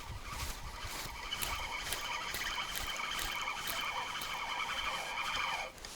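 Spinning reel being cranked to bring in a hooked perch: a steady whine that sets in after a second or so, then drops in pitch and stops near the end, with faint ticking along the way.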